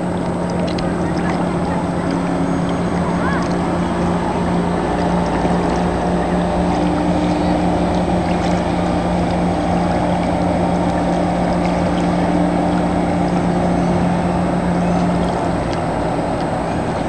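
Outboard motors on Lund race boats running at speed across open water: a steady engine drone that eases slightly near the end.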